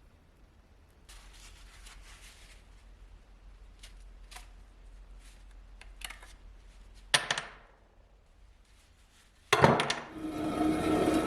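Workshop tool handling: faint rustling and light ticks, a sharp knock about seven seconds in, then a loud clatter and a small motor starting up and running steadily near the end.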